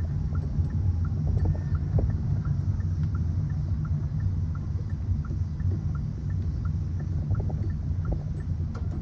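Deep, steady engine rumble of motorcycles rolling at low speed, with a light, regular tick about twice a second.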